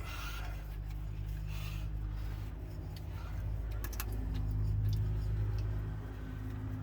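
A motor vehicle engine running with a steady low hum, which grows louder about four seconds in and eases off near the end. A few light metallic clinks.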